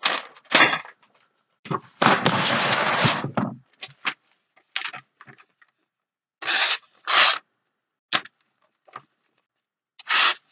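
Knife blade stroked across the wet 3000-grit side of a combination whetstone, scraping in separate strokes with pauses between, the longest about two seconds in. The scraping is the sign that the edge is not yet fine.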